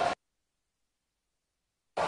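Digital silence: the sound cuts out completely just after the start, and the hall's background noise comes back right at the end.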